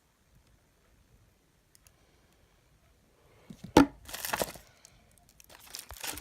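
Packaging being handled and opened: one sharp knock just past the middle, then rustling and tearing sounds, with more rustling near the end.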